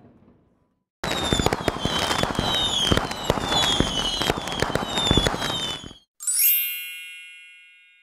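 Sound effects: dense crackling and popping with falling whistles repeating about twice a second, starting about a second in and cutting off abruptly after five seconds; then a bright chime struck once, ringing out and fading.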